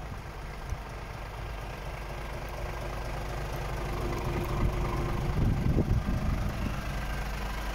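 Scania R450 truck's 13-litre straight-six diesel idling steadily, a low even hum that grows slowly louder.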